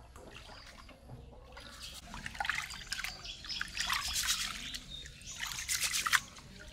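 Rice being washed by hand in an aluminium pot of water: hands swishing and rubbing the grains, with splashing and trickling water in two bouts after a quiet first second or so.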